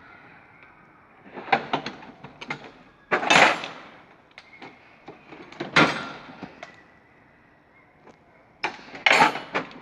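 Metal tool chest drawers being slid and knocked shut, with tools rattling: clusters of clicks and knocks, a short sliding rush about three seconds in, a single sharp bang near the middle and more knocks near the end.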